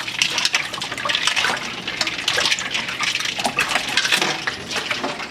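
Ice water splashing and sloshing in a stainless steel bowl as a hand stirs boiled white button mushrooms through it, with many short clicks of ice knocking against the mushrooms and the bowl.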